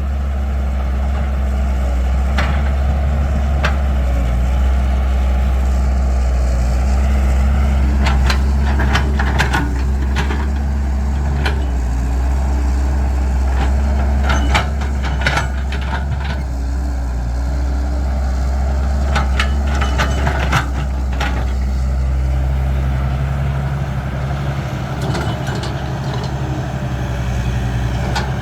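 Caterpillar 312 excavator's diesel engine running steadily while it works, with scattered sharp clanks and knocks; the engine note shifts a little after about twenty seconds.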